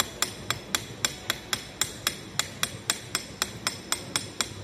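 Rapid, evenly spaced sharp taps, about four a second, like light hammering on a hard surface.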